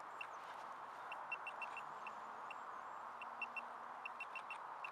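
Metal detector giving short, high beeps at one pitch, irregularly and in quick runs, over a steady hiss. The beeps show that the target lies in the clod of dug-out soil rather than in the hole.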